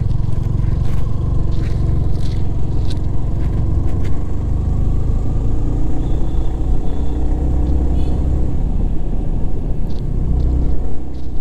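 Motorcycle climbing a hill road, its engine pulling under load beneath a steady low rumble of wind and road noise on the rider's microphone.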